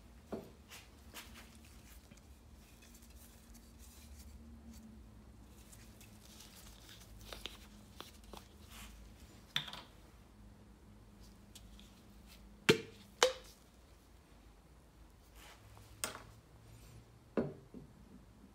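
A metal aerosol-type can being picked up and handled with gloved hands: a few scattered clicks and knocks, with two louder knocks about half a second apart roughly two-thirds of the way through.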